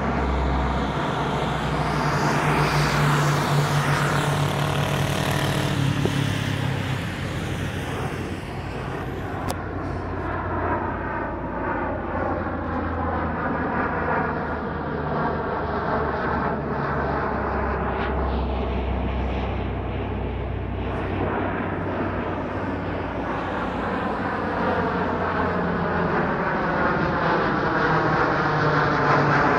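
Lockheed C-130 Hercules four-engine turboprop transport flying over, a steady drone of engines and propellers with a slowly shifting, phasing quality as it passes.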